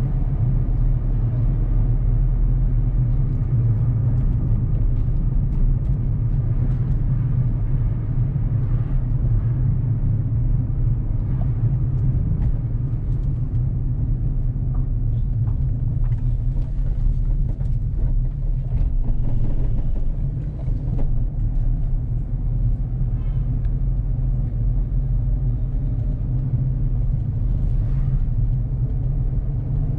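A car driving along a street: a steady low rumble of engine and tyre noise.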